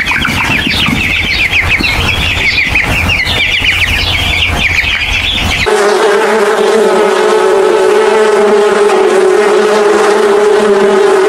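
Young chickens peeping rapidly in a dense chorus. About five and a half seconds in, this gives way to the steady buzz of a carpenter bee's wings.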